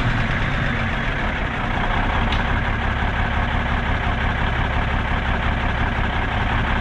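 Cummins Big Cam IV 400 straight-six diesel of a 1988 Kenworth K100E running at a steady idle, with a single sharp click a little over two seconds in.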